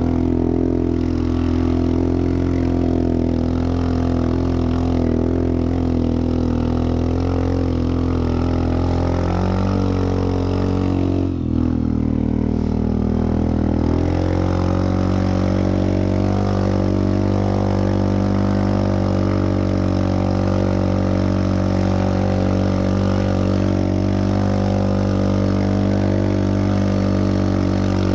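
Linhai 400S Dragonfly ATV engine running at a steady speed. About ten seconds in, the revs drop for a few seconds and then climb back.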